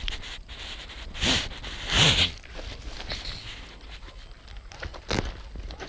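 Close-up rustling and crackling of a plastic bag being handled, with two louder short bursts of noise about one and two seconds in and a sharp click near the end.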